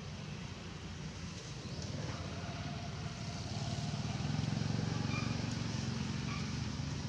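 A motor engine running steadily, growing louder from about four seconds in.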